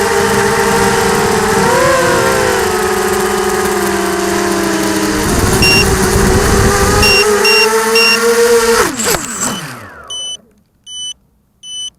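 ZMR 250 FPV quadcopter's brushless motors and propellers whirring steadily, their pitch rising and dipping with the throttle, with a few short high beeps midway. About nine seconds in the motors spin down and stop, and a high electronic beep then repeats about every three-quarters of a second.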